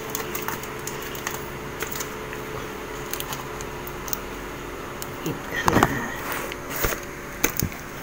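A person chewing food close to the microphone, with a few faint scattered clicks over a steady background hum. A short voiced sound, like a brief hum from the eater, comes about six seconds in.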